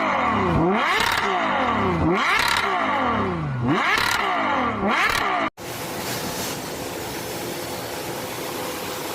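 An engine-like sound that repeatedly drops and rises in pitch, about once every second and a half, cut off abruptly about five and a half seconds in; after that, a steady, quieter mechanical hum.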